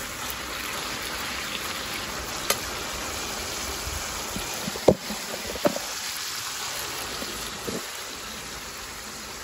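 Beef pieces sizzling in hot oil in a frying pan: a steady frying hiss with a few sharp pops, the loudest about five seconds in.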